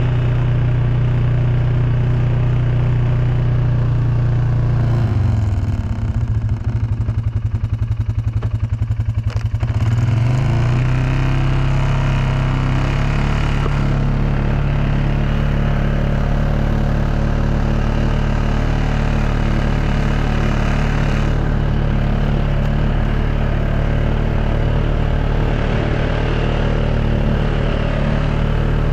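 An engine running steadily. About five seconds in its note breaks into a rapid flutter for several seconds, then it settles back into a steady run at a slightly higher pitch.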